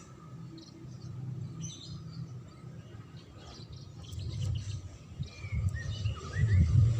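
A songbird chirping in short, scattered high notes, with a few quick sliding whistles in the second half, over a low rumble that grows louder near the end.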